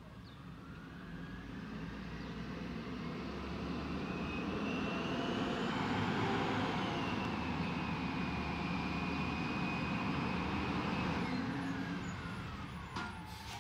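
Peterbilt 320 garbage truck with an Amrep elliptical body driving closer on the street, its engine and road noise growing louder over the first several seconds and easing off near the end, with a thin high whine over it. A short sharp hiss near the end, like an air brake.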